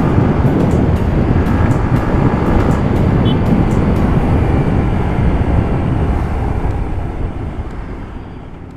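Yamaha MT-15 motorcycle on the move: a steady low rumble of engine and wind rushing over the camera microphone, fading out over the last two seconds.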